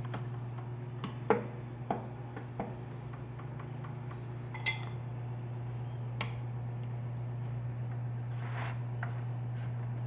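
Light clicks and taps of a utensil against a sauce bowl and an aluminium foil pan as barbecue sauce is spooned onto baked chicken, with one short ringing clink about halfway through. A steady low hum runs underneath.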